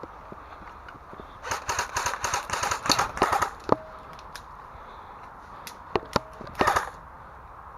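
Airsoft guns firing: a rapid burst of sharp clicking shots lasting about two seconds, a single crack, then two single shots and a short burst near the end.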